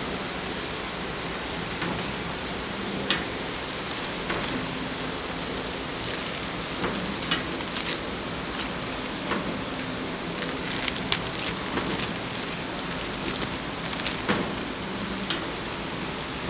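Flow-pack wrapping machine running: a steady hiss with irregular sharp clicks and a faint low hum.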